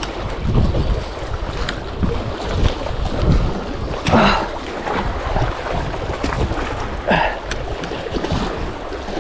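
Wind buffeting the microphone over waves washing against shoreline rocks, with louder surges of water about four and seven seconds in.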